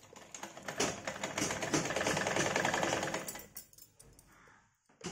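Sewing machine stitching: a fast, even run of needle strokes starts about a second in and goes on for about two and a half seconds, then stops. A single click near the end.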